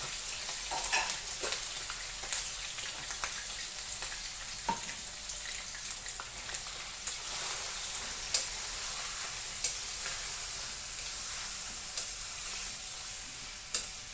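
Food sizzling in hot oil in a pan, a steady frying hiss with scattered sharp clicks and pops from the cooking.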